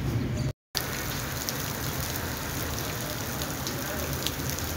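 Steady rain falling on wet paving, with scattered sharp drop ticks. The sound cuts out completely for a moment about half a second in.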